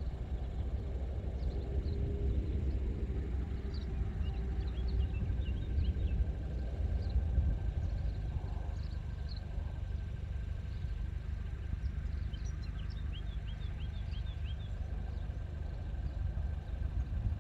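SEAT Ateca 1.5 TSI turbocharged four-cylinder petrol engine idling steadily, heard from behind at the exhaust.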